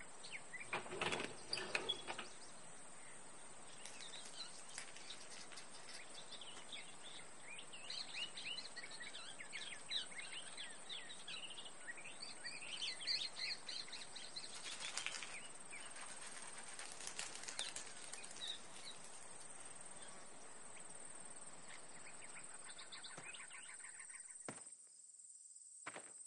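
Faint ambience of small birds chirping over a steady high hiss, with a few brief rustles and knocks, the loudest about a second in.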